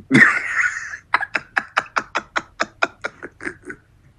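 A man laughing hard: an opening breathy burst, then a quick run of short laughing breaths, about four or five a second, that grow fainter toward the end.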